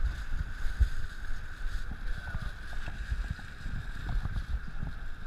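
Wind buffeting a dog's collar-mounted action camera microphone: an irregular low rumble with small knocks over a steady hiss.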